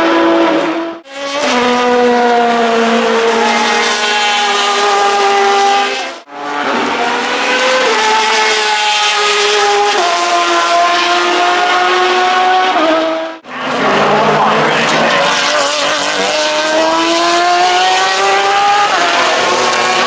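GTE race car engines at high revs, chiefly the Porsche 911 RSR's flat-six, with the pitch climbing under acceleration and dropping back at each upshift. Abrupt cuts about 1, 6 and 13 seconds in join separate pass-by clips.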